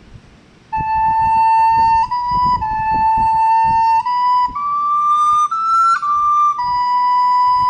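Soprano recorder playing a short, slow melodic phrase of separately tongued notes: it rises to its two highest notes, re and mi, then settles on a long held final note.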